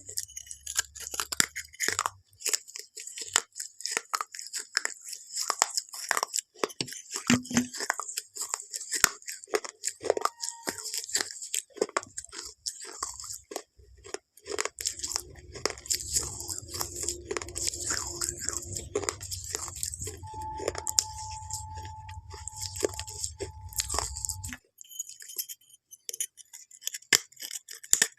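Close-up crunching and chewing of something crisp: rapid, irregular crunches throughout, with a steady low hum underneath for about ten seconds in the middle.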